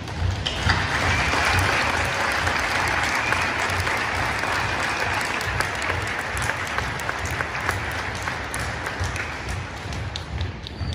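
Audience applauding, starting about a second in and thinning out near the end, over the repeated low thud of a drill team's boots marching on a wooden gym floor.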